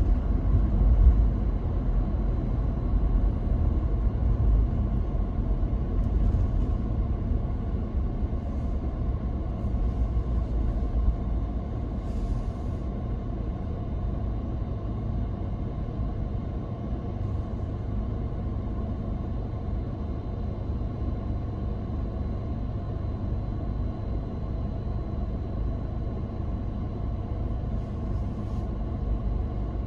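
Low rumble of a car driving on a city road. It eases off over the first dozen seconds as the car slows into queued traffic, then stays steady.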